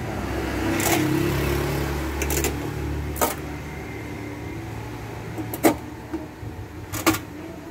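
Push-in plastic trim clips of a Toyota Vios trunk-lid liner snapping into their holes as they are pressed home by hand, a few sharp clicks about 3, 5.5 and 7 seconds in. Under the first half runs a low rumble like a vehicle running.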